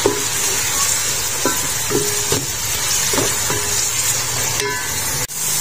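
Sliced onions sizzling steadily in hot oil in an aluminium pot, with a wooden spoon stirring through them. The sizzle cuts out for an instant near the end.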